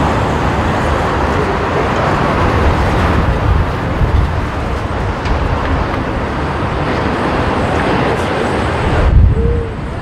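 Emirates Airbus A380-861's four Engine Alliance GP7200 turbofans at go-around thrust as the jet climbs away, a loud steady roar with deep rumble, mixed with strong wind buffeting the microphone. A heavier low surge comes about nine seconds in, after which the high hiss falls off.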